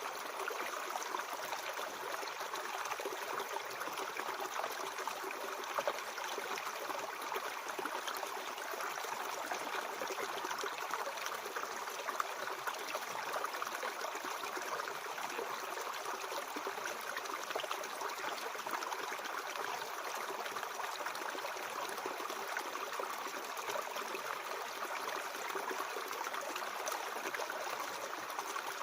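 Mountain stream flowing over rocks: a steady rushing and trickling of water, without pauses.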